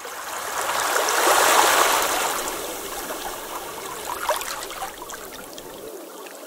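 Shallow wave washing up over sand at the water's edge, a fizzing rush of water that swells in the first second or two and then fades as it drains back.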